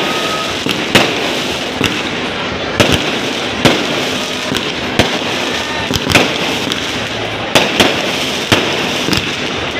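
Aerial fireworks bursting overhead: about eight sharp bangs at uneven intervals over a continuous noisy background.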